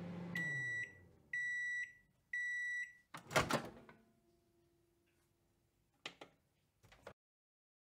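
Microwave oven finishing its cycle: the running hum winds down, it beeps three times, then the door latch pops open with a clunk. Two softer clicks follow near the end.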